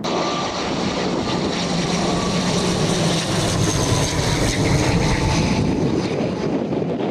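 Aircraft engines running loud as a plane passes, with a steady whine that drifts slowly lower in pitch.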